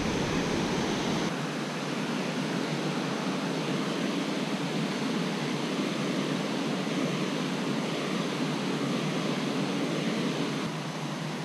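Steady rush of river water pouring over a low mill dam's spillway.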